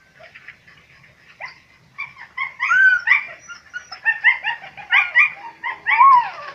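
Hunting dogs yelping and whining excitedly in quick, overlapping calls, some bending up and down in pitch, at a wild cat they have treed. The calls start about two seconds in and continue steadily.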